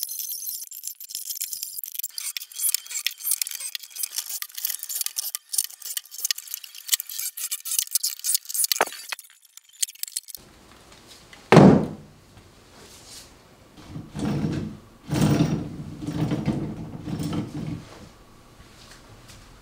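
A high jingling rattle fills the first half and stops abruptly. Then cordless power tools are set down onto wooden shelves: one sharp, heavy knock, then a run of duller knocks and scrapes over the next few seconds.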